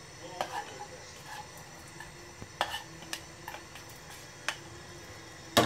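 A black spoon knocking and scraping against a bowl and the rim of a stainless steel pot as chopped vegetables are pushed into mung bean soup: a handful of separate clinks, the loudest near the end.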